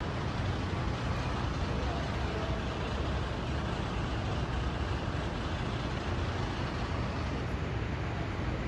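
A steady rushing roar with a heavy low rumble underneath, unbroken and even in level: the unexplained abnormal noise that brought fire engines to the hospital.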